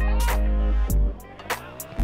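Background music with a deep sustained bass line, pitched instrument notes and sharp drum hits.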